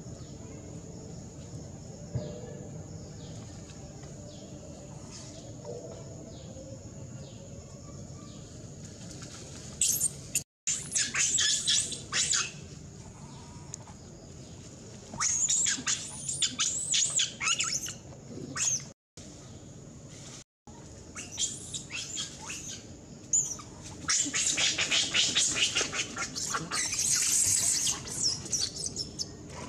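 Macaques screaming in repeated high-pitched bursts, each lasting a few seconds, in three bouts after a quieter start, as in a scuffle between monkeys.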